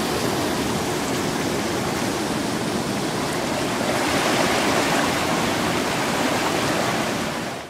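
Steady rush of turbulent water churning and boiling in the tailwater below a dam, cutting off suddenly at the end.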